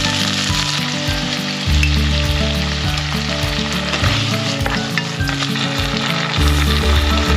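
Curry ingredients sizzling as they fry in a pan, a steady hiss throughout, over background music with a bass line.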